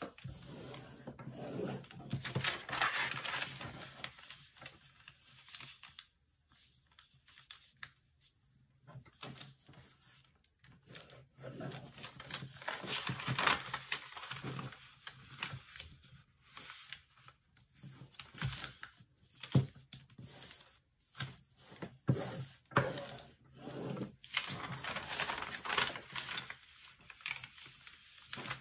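A large sheet of origami paper rustling and crinkling as hands fold it and press the creases flat. The sound comes in irregular bursts with short pauses and a few sharp crackles.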